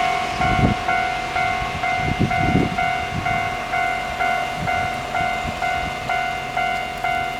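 Japanese railway level-crossing warning bell ringing in a steady, even ding-dong pattern of about two strokes a second. In the first few seconds the last low rumbles and wheel thumps of a passing train come through.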